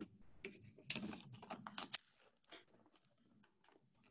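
Sheets of paper rustling and crinkling as a packet of documents is handled, in a cluster of rustles over the first two seconds, then only faint scattered rustles.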